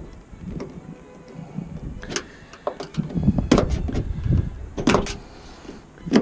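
Scattered clicks and knocks of small door-handle parts being handled and fitted inside a Renault Trafic's passenger door, the sharpest about three and a half and five seconds in, with a low rumble of handling noise between them.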